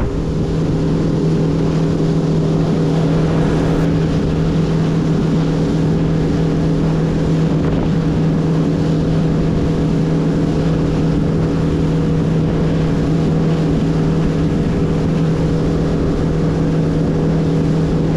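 Boat's outboard motor running at a steady speed, an unchanging engine tone over wind and water noise.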